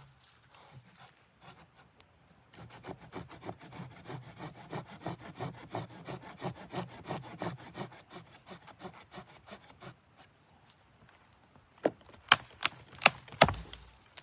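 Wood being sawn by hand: fast, even, rasping strokes for several seconds that then stop. Near the end come five sharp knocks, the loudest sounds.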